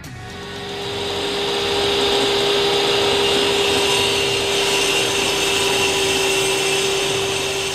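Table saw ripping a narrow wooden strip fed along its fence: a steady motor-and-blade whine under the rasp of the cut. It swells up over the first couple of seconds and then holds.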